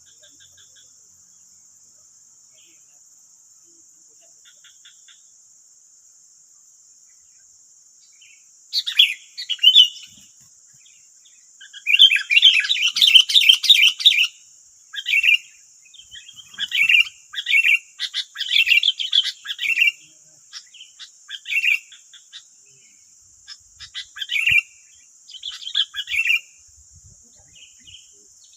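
Sooty-headed bulbuls (kutilang) calling in loud, chattering bursts that start about nine seconds in and come again and again, densest a few seconds later. A steady, high insect drone runs underneath.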